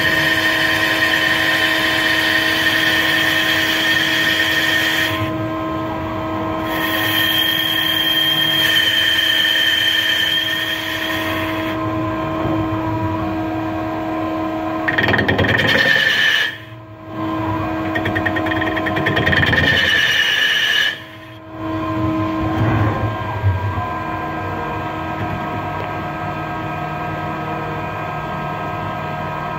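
Mazak CNC lathe with its spindle spinning a crankshaft, a steady machine hum carrying several fixed tones. A higher-pitched whine comes and goes over several stretches as the tool takes turning passes on the steel journal. The sound drops out briefly twice.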